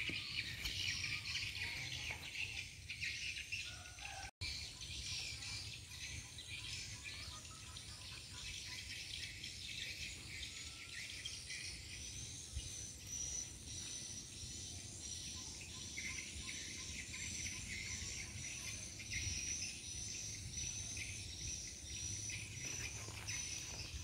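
Outdoor ambience of birds chirping and insects calling, a dense high-pitched chatter; from about halfway a quick, evenly repeated high chirping runs on. The sound drops out for an instant about four seconds in.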